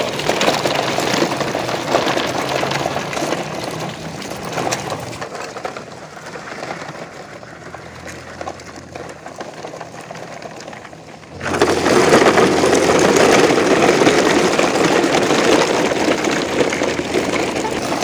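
Plastic toy dump trucks rolling over gravel and packed dirt, with a continuous crunching and scraping of hard wheels on grit. It is quieter through the middle and turns suddenly louder about eleven seconds in.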